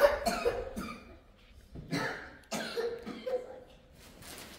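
A person coughing several times in short bursts.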